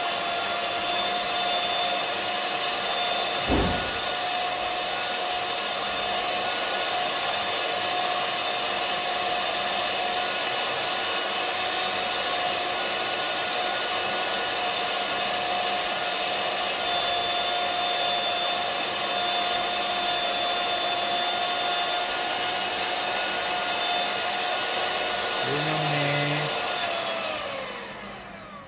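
Small electric hand mixer running steadily with a high whine as its beaters whip matcha, sugar and hot water into dalgona foam, with a brief thump about three and a half seconds in. Near the end it is switched off and the whine falls in pitch and dies away.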